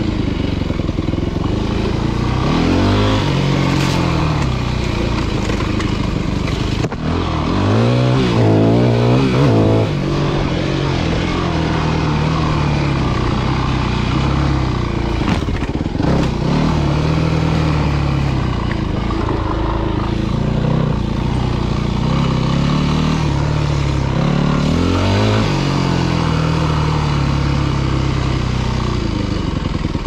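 Yamaha WR250F four-stroke single-cylinder dirt bike being ridden: the engine runs steadily and revs up and drops back several times, with a busy run of quick throttle blips about eight seconds in.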